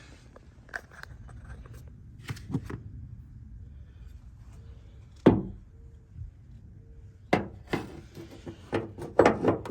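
Scattered clicks and knocks as a steel ditch-light bracket is set in place against the truck's hood-hinge area and its top bolt is put back in. The sharpest click comes about five seconds in, with more knocks near the end.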